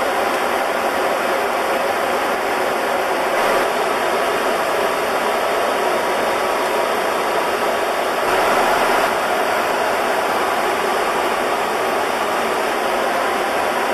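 Steady rushing cockpit noise of an Airbus A300-600R in flight: the hiss of air streaming past the flight deck mixed with the low drone of the aircraft, swelling slightly about halfway through.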